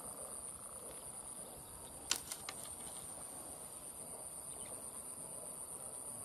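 Insects droning steadily at a high pitch over faint outdoor background noise, with one sharp click about two seconds in and a few fainter ticks just after.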